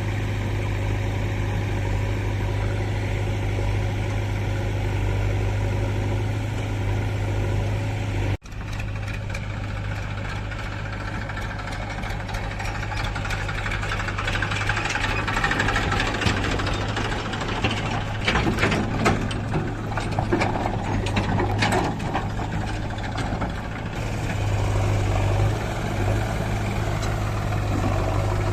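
Engine running at a steady idle with a low drone. It cuts off abruptly about eight seconds in, then clattering and rattling knocks join a rougher engine sound for several seconds, before the steady drone returns near the end.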